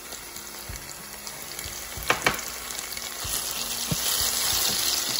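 Chopped onion and scotch bonnet pepper sizzling in hot olive oil in a pan while being stirred with a wooden spoon. The spoon knocks against the pan twice about two seconds in, and the sizzle grows louder in the second half.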